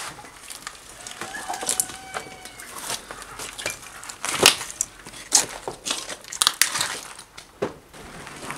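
Chickens clucking, mixed with a series of sharp knocks and clatters, the loudest about halfway through.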